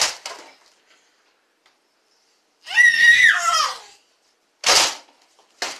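A child's high-pitched squeal lasting about a second, bending up and then down, in the middle; short sharp pops of a Nerf blaster firing darts at the start and twice near the end.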